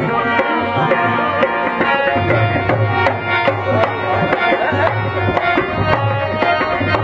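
Rajasthani folk music of the kind played for a kathputli string-puppet show: a hand drum keeps a quick, steady rhythm with deep thumps, over held notes and a few sliding melodic lines.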